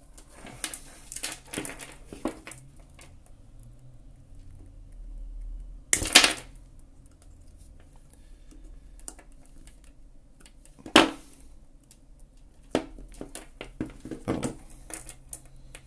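Small clicks and clinks of pliers working on a bracelet's metal links and stone beads, with a louder knock about six seconds in and another about eleven seconds in, like a hand tool being set down on a wooden table.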